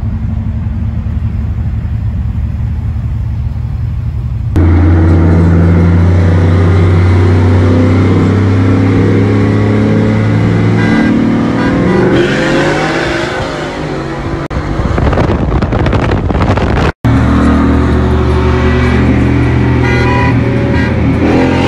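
Pickup truck engines running loud. A steady rumble jumps abruptly to a much louder, steady engine drone about four and a half seconds in. The revs rise around twelve seconds in, the sound cuts out for an instant a few seconds later, and then the loud engine note resumes.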